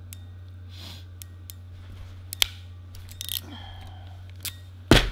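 Hand crimping tool pressing aviation-style butt connectors onto wires: scattered sharp clicks, one louder clack about halfway through, and a heavy thump near the end, over a steady low hum.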